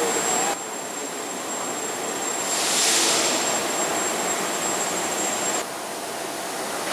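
Steady noise of a large railway workshop hall, with a thin high whine over it. A hiss swells and fades about three seconds in. The level drops about half a second in and comes back up near the end.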